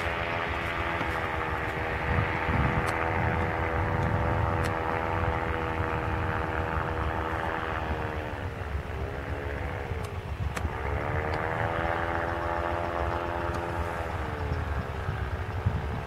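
Paramotor engine and propeller droning steadily in flight. About two-thirds of the way through, the pitch sags briefly, then returns. Wind buffets the microphone with a low rumble.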